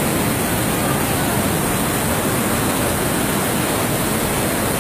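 Steady loud rush of a muddy flash-flood torrent pouring down a street, an even roar of water with no breaks.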